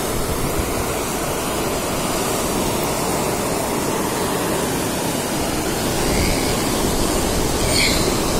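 Sea surf washing ashore, a steady rushing noise, with wind on the microphone adding a low rumble that grows about six seconds in.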